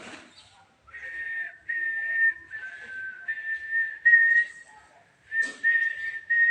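A person whistling a slow tune: a string of held notes at nearly the same pitch with short breaks between them, dipping slightly in the middle.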